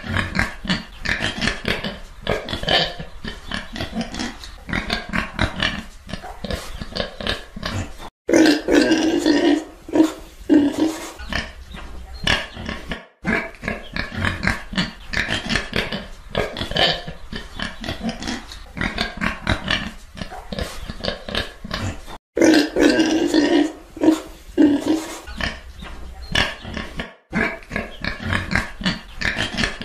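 Pigs grunting and oinking in a continuous stream, broken by a few abrupt, very short silent gaps. The grunting grows louder and deeper for a few seconds about eight seconds in and again about twenty-two seconds in.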